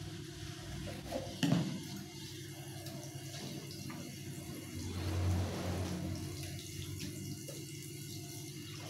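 Kitchen tap running into a stainless steel sink during dishwashing, a steady splashing rush of water. A short knock about one and a half seconds in.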